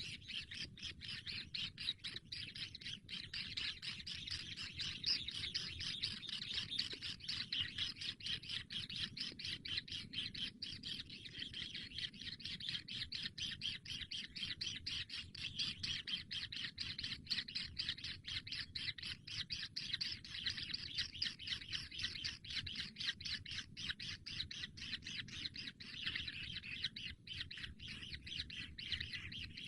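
Kingfisher chicks giving short, high begging chirps, several a second, in an unbroken run, over a low background rumble.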